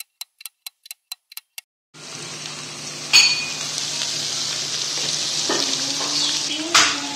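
A quick run of about seven light ticks, four or five a second, then chicken karahi sizzling in the pan, with a utensil clinking and scraping against the karahi twice.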